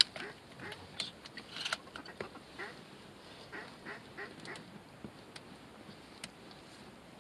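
A rapid series of duck quacks that thins out after about four and a half seconds. A sharp click right at the start is the loudest sound.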